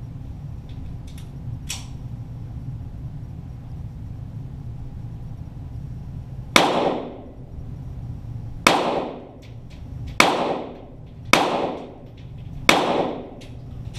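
Five single shots from .22 Walther GSP target pistols, spaced one to two seconds apart, each sharp crack trailing off in a short echoing tail.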